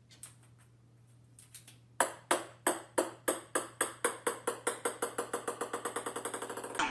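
Ping-pong ball bouncing on a wooden floor: starting about two seconds in, the bounces come quicker and fainter until they run together as the ball settles.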